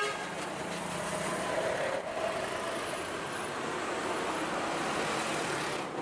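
Roadside traffic noise: a steady wash of road sound with a motor vehicle passing, its engine heard most in the first half.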